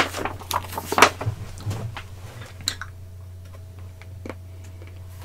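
Paper pages of a small booklet rustling and flapping as a page is turned and the booklet handled, sharpest at the start and about a second in, then a few light taps. A steady low hum runs underneath.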